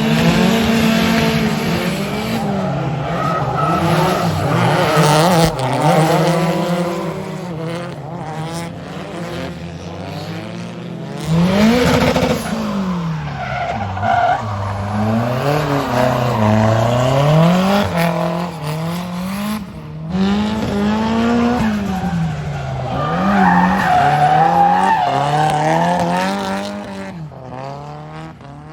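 Drift cars sliding, their engines revving up and down again and again as the drivers work the throttle through the corners, over a steady screech of tyres. The sound changes abruptly a few times, the clearest change about eleven seconds in.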